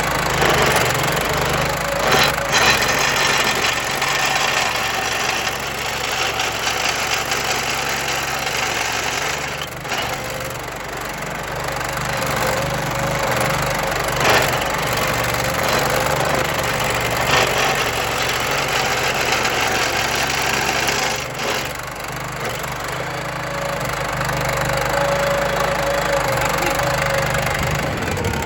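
Vermeer SC30TX stump grinder running at speed, its cutter wheel grinding into a wooden stump with a loud, steady, chip-throwing noise over the engine. The cutting noise eases briefly a couple of times as the wheel is swung across the stump.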